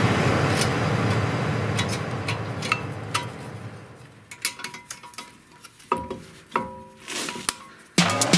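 Background music fading out over the first few seconds, then a few light metallic clinks and clicks as brake pads are seated into the front caliper carrier and its spring clips. Music comes back in near the end.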